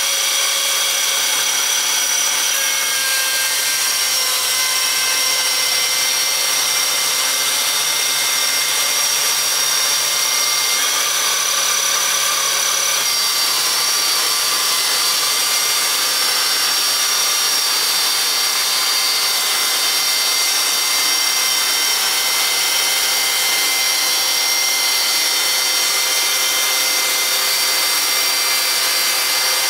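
Electric chainsaw mill with a ripping chain running under load, cutting lengthwise along an oak log under automatic feed: a loud, steady high whine that shifts slightly about thirteen seconds in.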